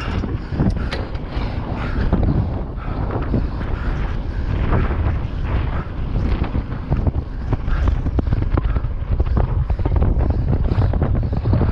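Wind rushing over an on-board camera microphone while a mountain bike is ridden on trail, with a steady low rumble and frequent short clicks and knocks from the bike.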